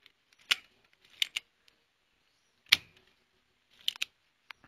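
Manual spring-loaded desoldering pump (solder sucker) being cocked and fired while solder is melted off the pins of an STK amplifier IC: a series of sharp clicks and snaps, the loudest about half a second in and again near the middle.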